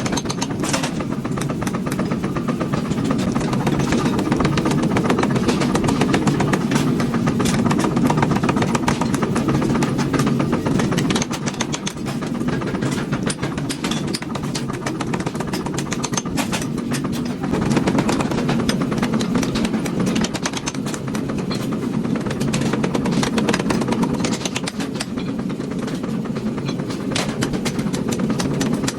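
Blacksmith shop machinery running with a steady motor drone, with many sharp metal-on-metal strikes, irregularly spaced, over it.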